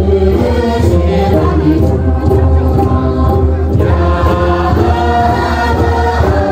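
Tibetan folk dance song: a group of voices singing together over music with a steady heavy bass.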